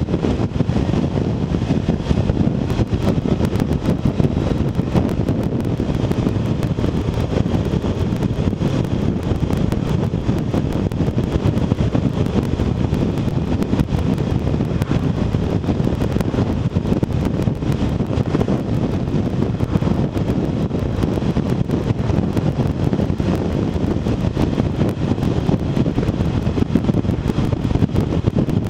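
BMW R1200RT motorcycle under way at about 40 mph: a steady rush of wind and road noise with the flat-twin engine's drone underneath, and a fine crackle running through it from a couple of seconds in.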